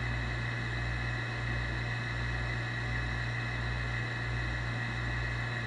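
Air conditioner running steadily: a constant hum with a faint high whine, over a low throb that pulses about one and a half times a second.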